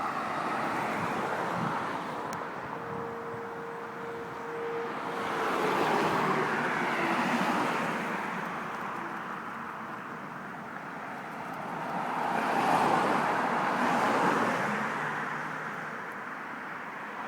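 Distant outdoor tornado warning sirens, thought to be Whelen 4004s, sounding a test: a hazy wail that swells and fades twice in slow waves as the sirens rotate. It is mixed with a low traffic hum.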